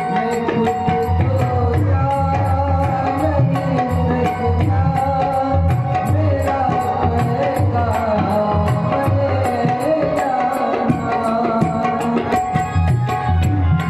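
Indian devotional bhajan music: tabla drumming with deep bass strokes under a sustained, wavering melody, with evenly spaced high ticks keeping the beat.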